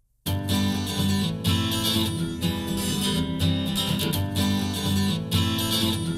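An acoustic-guitar song starts after a brief silence, with strummed guitar over a steady beat. This is the instrumental intro before the vocals come in.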